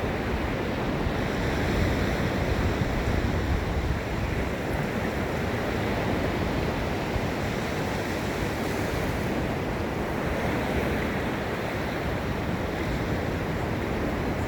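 Gulf of Mexico surf washing steadily onto the beach, with a low rumble of wind buffeting the microphone.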